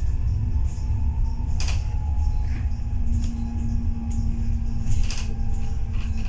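Interior sound of a Dennis Trident 2 double-decker bus under way: a heavy low rumble from the engine and road, a steady drivetrain whine, and a few brief knocks or rattles.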